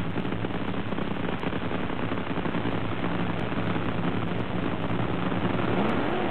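Supercharged nitro-burning funny car engine idling steadily as the car rolls forward, heard through hissy, low-quality broadcast audio.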